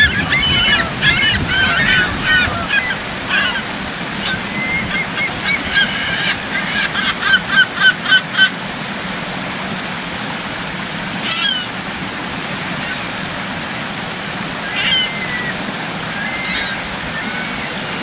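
Gulls calling over a rushing stream: a flurry of overlapping calls at first, then a run of loud, evenly spaced calls, about four a second, that stops abruptly about eight and a half seconds in, followed by a few single calls.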